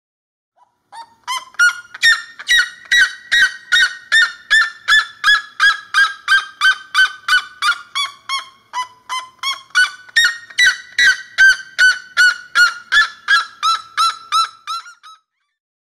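Red-legged seriema calling: a long, loud series of yelping notes, about three a second. The notes rise in pitch, then slide gradually lower, and jump back up for a second falling run before stopping.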